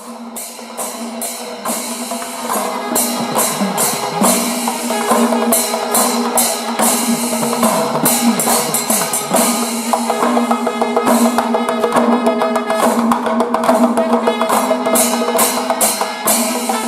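Percussion-led music with a steady drone and many sharp, regular hits, fading in over the first two seconds or so.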